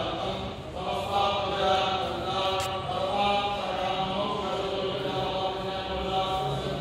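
Vedic priests chanting Sanskrit mantras in a steady, unbroken recitation.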